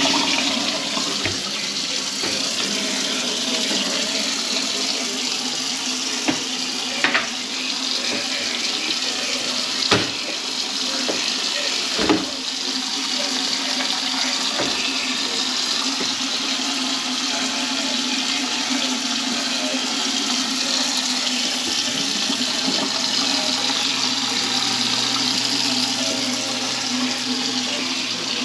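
Water running steadily from a tap into a kitchen sink drain, with a few sharp knocks around the middle.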